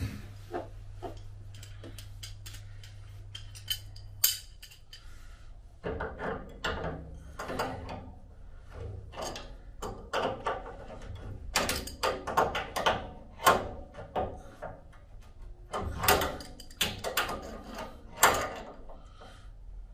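Adjustable spanner working a radiator valve's compression fitting: irregular metallic clicks, knocks and scrapes as the nut is gripped and turned tight. The fitting is being done up after its thread was re-sealed with PTFE tape to cure a leak. The clicks are sparse at first and come thick and fast from about six seconds in.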